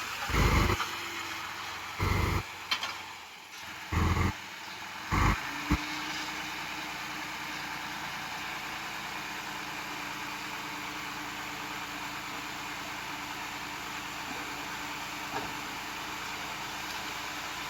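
Heavy equipment engine running steadily, with several short, loud, deep bursts in the first six seconds.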